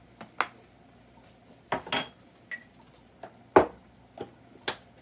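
Metal spoon clinking and tapping against a glass jar of seasoning: a string of eight or so sharp, separate clinks, the loudest about three and a half seconds in.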